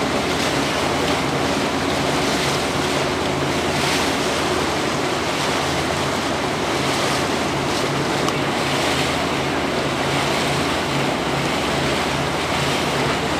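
Small motorboat's engine running steadily under way, a low even hum, with water rushing along the hull and some wind noise.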